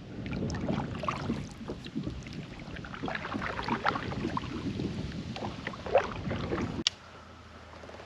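Water sounds around a fishing kayak, with wind rumbling on the microphone and many short splashy crackles; it cuts off sharply about seven seconds in, leaving a quieter background.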